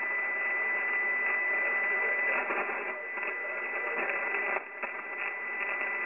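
Amateur radio receiver tuned to an open frequency: a steady hiss of band noise with a thin, steady high whistle of a carrier running through it.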